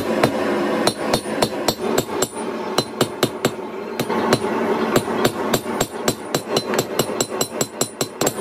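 Hand hammer striking red-hot rebar on an anvil in a steady run of blows, about three a second, each with a short metallic ring: the rebar's end is being forged flat.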